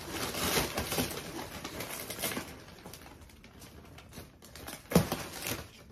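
Paper and cardboard rustling as packing material is handled inside a shipping box. The rustling dies down about halfway through, and a single sharp knock comes about five seconds in.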